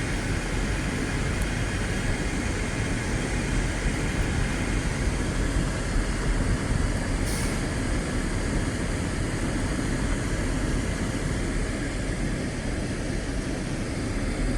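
Steady loud engine noise with a deep low rumble and a faint high whine, holding even throughout.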